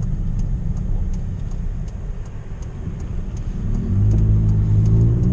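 Car engine and road rumble heard from inside a moving car's cabin, with faint ticking about twice a second; about four seconds in the engine note comes up louder.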